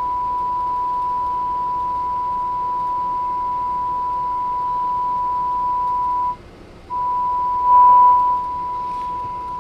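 A steady pure test tone from a signal generator, received on a Cobra 148 NW ST CB radio and played through its speaker. The tone cuts out for about half a second a little after six seconds in, then comes back, briefly louder around eight seconds. The radio's receiver is picking up the generator's signal cleanly.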